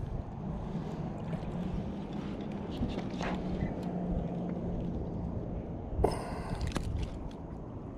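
Wind rumbling on the microphone over a steady low hum, with a brief burst of scuffling handling noise about six seconds in as a largemouth bass is grabbed by hand off the line.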